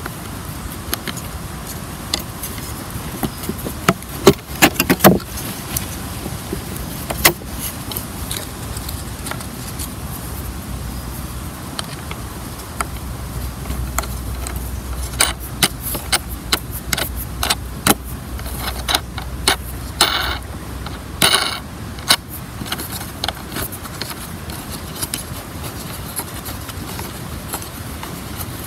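Scattered light clicks and metallic clinks of a small bolt and a saw blade being handled and fitted into the slotted end of an ash buck-saw strut, with a couple of short scrapes about twenty seconds in.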